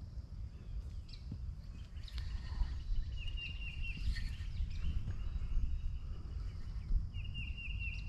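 A bird calling a quick run of four short notes, about three seconds in and again near the end, with other faint bird calls, over a steady low rumble of wind on the microphone.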